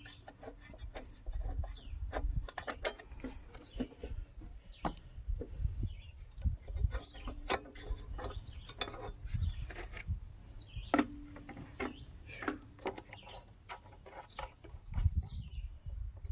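Irregular clicks, knocks and scraping of tools and metal parts being handled while a walk-behind lawn mower is taken apart, with low rumbling from the hand-held phone.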